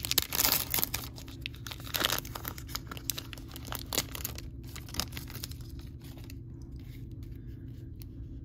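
A foil trading-card pack wrapper being torn open and crinkled, densest in the first two seconds, then a few sharp crackles and fainter rustling.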